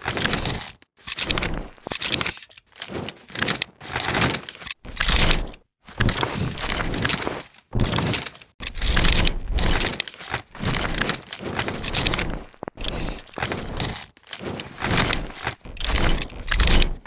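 A quick run of short, crackly, noisy film-burn transition sound effects, one after another about once a second, each cutting off abruptly into a brief silence.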